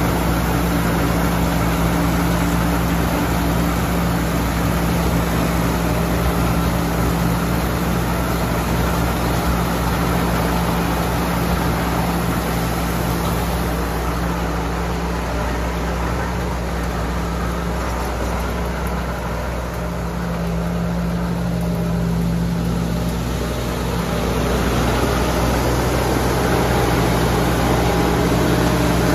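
Tamco S7000 tracked combine harvester running steadily with its engine and machinery going as it harvests corn. The sound eases slightly about two-thirds of the way through, then picks up again.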